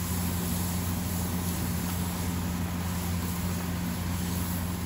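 A steady low mechanical hum with an even hiss over it, unchanging throughout, around a large street-food griddle.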